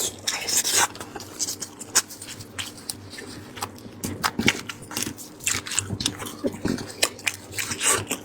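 Close-miked wet eating sounds: irregular smacking, sucking and chewing clicks as soft braised lamb brain is eaten.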